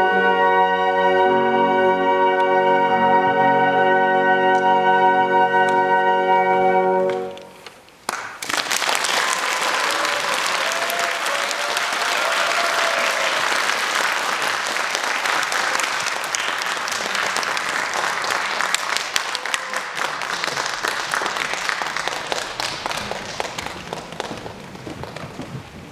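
A flute ensemble holds its final chord, which dies away about seven seconds in. After a brief pause the audience applauds, the clapping slowly thinning toward the end.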